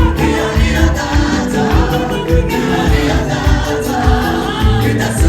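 Gospel choir singing with band accompaniment over a steady bass beat.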